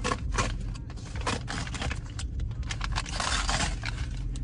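Paper sandwich wrapper crinkling and rustling as it is handled and opened, a run of short crackles with a denser rustle about three seconds in, over a steady low hum.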